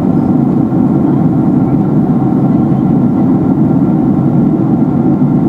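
Steady low drone of an airplane in flight heard from inside the cabin: engine and airflow noise, even and unchanging, during the descent to land.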